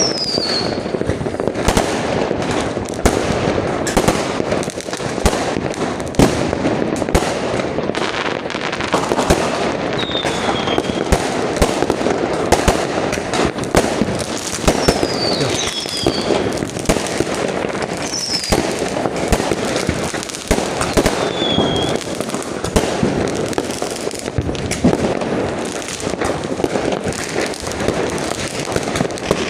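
Fireworks going off thick and fast: a dense, unbroken rattle of bangs and crackles, with several short falling whistles through it.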